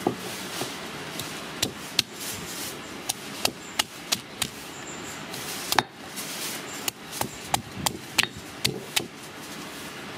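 Stone pestle pounding ingredients in a granite mortar: a series of sharp, irregular knocks, some coming in quick runs of two or three.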